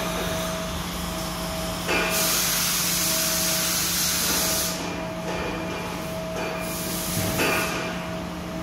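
Robot arm loading a Mazak QuickTurn 350MY CNC lathe: over a steady machine hum with a constant tone, a loud hiss of compressed air starts about two seconds in and lasts about two and a half seconds. A few short clicks follow.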